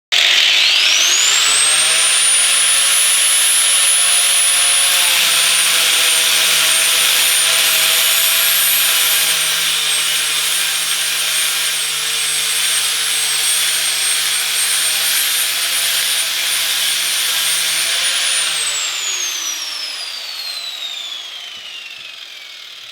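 Angle grinder with an abrasive disc grinding surface rust off the flat steel of a truck frame. Its whine rises as it spins up, holds steady under the rough hiss of the disc on the metal, then falls away after it is switched off about eighteen seconds in.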